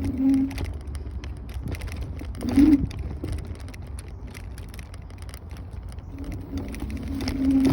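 Wind and road rumble while riding a Kaabo Wolf Warrior 11 Pro electric scooter, with an on-and-off low hum near the start and again near the end, and a brief louder blip about two and a half seconds in.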